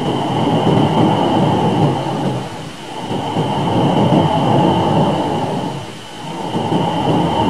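Sonified spacecraft recording of Earth's magnetopause, the boundary where the planet's magnetic field meets the solar wind: a dense rushing noise that swells and fades in slow waves, with a faint steady high tone above it.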